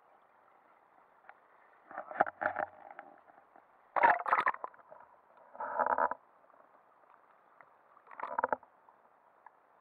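Water sloshing and gurgling against an action camera as it is dipped into the sea, in four short, muffled bursts.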